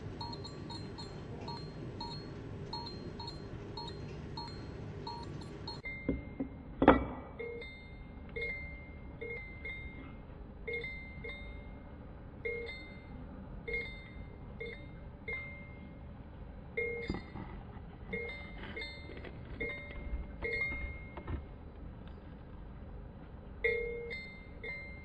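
Osram glow starter of a fluorescent tube cycling over and over, its bi-metal contact clinking with a short metallic ring about twice a second while the tube flickers without staying lit. The ring drops in pitch about six seconds in, and a single sharp, louder snap follows a second later.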